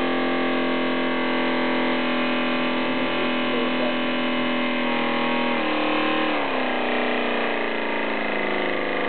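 IMP Tornado V-4 model expansion engine running on compressed air with a steady, high mechanical whine. About six seconds in its pitch drops and it settles to a slower steady speed as the air pressure feeding it falls.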